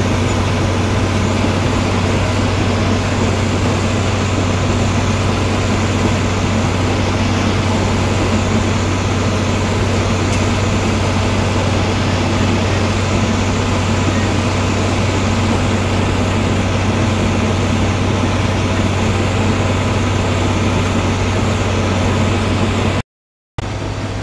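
Tractor engine running steadily under load while pulling a sickle-bar hay mower-conditioner through standing hay, heard from inside the cab as a constant low drone. The sound cuts out for about half a second near the end.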